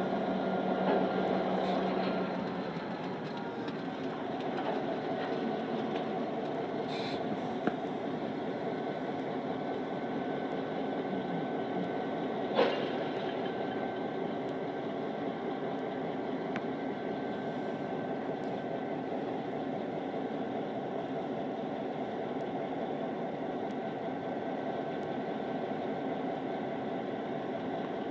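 Two diesel-electric freight locomotives idling with a steady hum, heard from inside a car. A single sharp click comes about halfway through.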